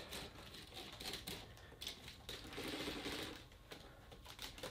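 Faint, irregular clicking and rattling of plastic K'nex parts as the coaster's lift chain is handled and fitted onto the track.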